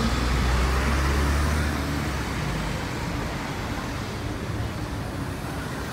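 Road traffic passing close by: a low engine rumble, loudest for the first two seconds, easing into steady traffic noise.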